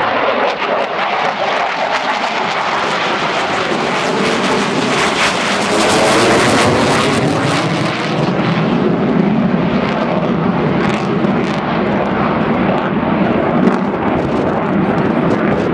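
Fighter jet flying a display pass with afterburner lit: loud, continuous jet noise, sharpest around six seconds in, then turning deeper from about eight seconds as it moves away.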